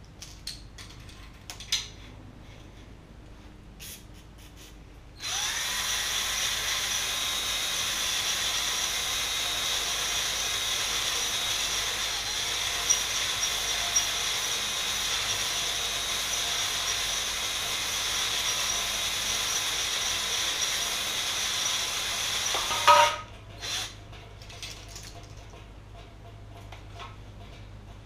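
A cordless drill spins a spring-loaded stone hone inside a cast-iron Ford FE V8 cylinder bore, running steadily for about eighteen seconds from about five seconds in. It stops with a short clatter. This is a light hone that roughs up the bore with a crosshatch so the new rings will seat. Small handling clicks come before it.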